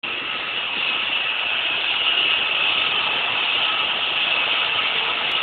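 A machine motor running steadily, an even hissy noise with no change in pitch.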